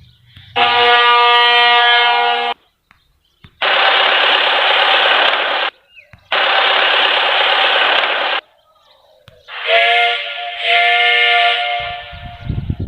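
A sequence of separate vehicle horn and whistle blasts, four in all, each about two seconds long with short gaps between; the last is a pitched whistle over a hiss.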